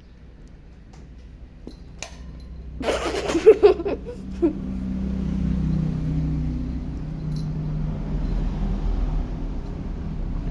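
A steady, low engine-like hum, like a motor vehicle running, that builds up from about two seconds in. A brief, louder burst of sound comes around three to four seconds in.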